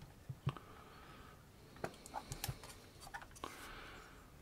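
Faint, scattered small clicks and handling noises of a Kodak Retina Automatic II camera being opened and its rewound film cassette taken out.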